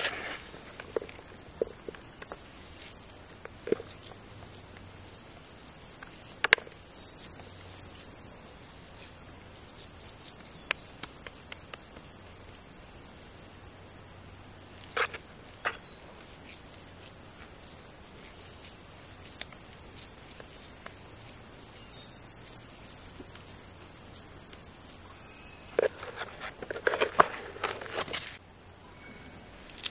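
Insects trilling steadily at a high pitch, with scattered sharp clicks and a short cluster of knocks near the end.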